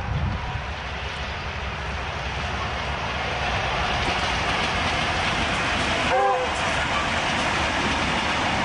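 Goods train wagons rolling past on the track, a steady rumble with some clatter from the wheels. A brief high-pitched call cuts through about six seconds in.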